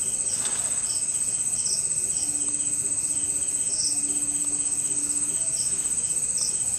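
Crickets chirping: a steady, high-pitched, rapidly pulsing trill, with a second insect giving short chirps every second or two over it.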